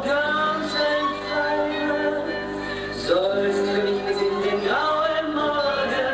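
A German schlager song: a voice sings three long held notes, each sliding up into its pitch, over musical accompaniment.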